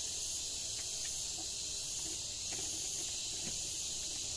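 Steady, high-pitched insect chorus, a constant shrill buzz that neither rises nor falls.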